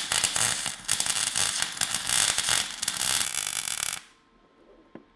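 Wire-feed (MIG) welder arc crackling steadily as a steel bracket is welded, with a short break about a second in; the arc stops suddenly after about four seconds.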